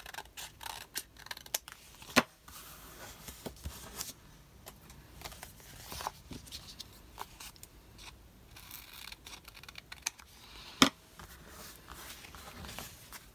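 Scissors cutting paper, with paper rustling and small clicks as it is handled on a desk. Two sharper taps stand out, one about two seconds in and one near the end.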